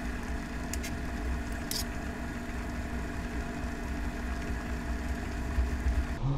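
Steady low hum and hiss of a kitchen appliance running, with two brief light clicks about one and two seconds in.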